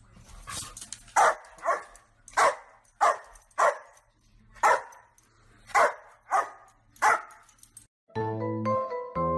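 A dog barking repeatedly, about nine sharp barks spaced half a second to a second apart, some in quick pairs. Music starts near the end.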